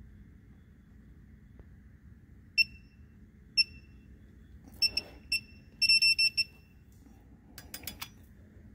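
Digital torque wrench beeping as the pressure plate bolts are pulled up to their set torque: a few separate short, high beeps, then a quick run of beeps about six seconds in. A few sharp clicks come near the end.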